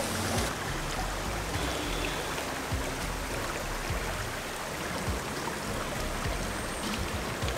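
A river flowing, a steady rushing water noise; the highest part of the hiss drops away about half a second in.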